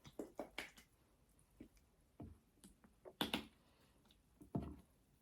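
Irregular clicks and soft knocks of a honey mustard squeeze bottle being shaken and squeezed onto a chicken sandwich, with a quick run of small clicks in the first second and louder knocks about three seconds in and near the end.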